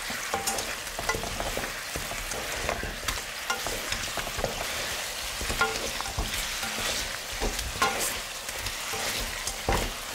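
Fish-sauce and sugar glaze sizzling in a nonstick wok as chicken wings are tossed through it with chopsticks and a wooden spatula, coating the wings in the sauce. The steady sizzle is broken by frequent light taps and scrapes of the utensils against the pan.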